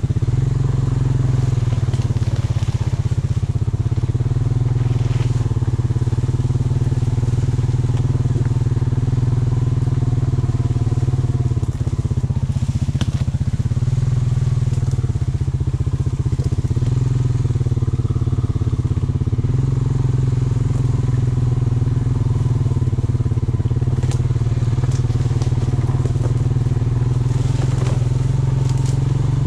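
A motor vehicle driving along, its engine running with a steady drone that drifts slightly up and down in pitch. Occasional light clicks and crackles come from the ride.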